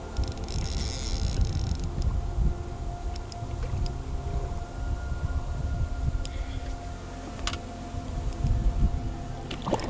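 Sustained background music tones over irregular low rumbling noise on the microphone.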